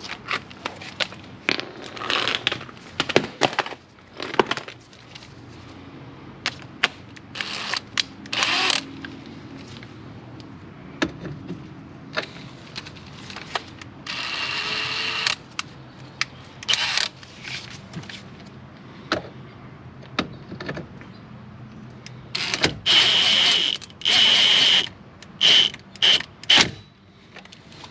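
Ratchet wrench clicking in short bursts, several times, with sharp metal clinks in between: the Chevy Venture's brake caliper bolts being run down by hand before they are torqued.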